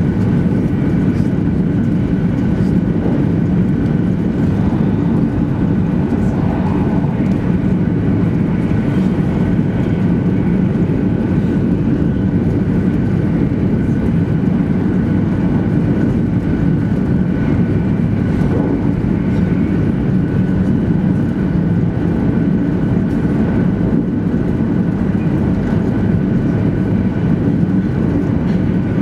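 Cabin running noise of a 200 series Shinkansen car at speed: a steady low rumble with a faint constant whine above it.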